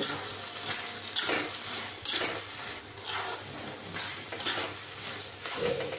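Spoon scraping and stirring through a thick vegetable-and-prawn curry in a kadai, about eight scraping strokes, over the steady hiss of the curry frying.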